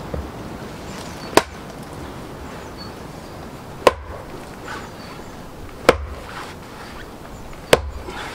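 Four sharp axe blows into an upright fir log on a chopping block, about two seconds apart. The blade sticks in the log instead of splitting it, which he puts down to the wood being too wet. Wind rumbles on the microphone underneath.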